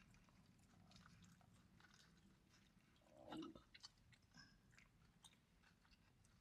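Faint, close-up chewing and biting of burgers, with small wet mouth clicks and a brief louder sound about three seconds in.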